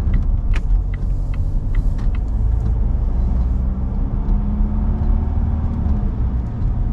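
Volvo XC60's 2.0-litre diesel engine and road noise inside the moving car, a steady low rumble. Past the middle the engine note climbs slowly as the car pulls harder, then drops near the end. Light ticks, about two and a half a second, run through the first couple of seconds.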